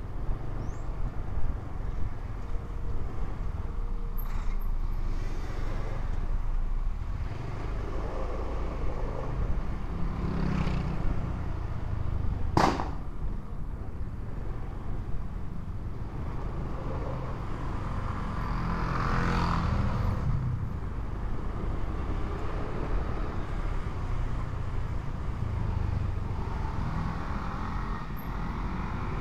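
Steady low rumble of a vehicle riding along a street, with engine and road noise and wind on the microphone. A single sharp click comes a little before halfway.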